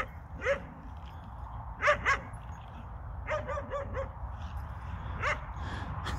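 Lurchers barking and yipping in play: short, high yelps, singly and in pairs, with a quick run of about five near the middle.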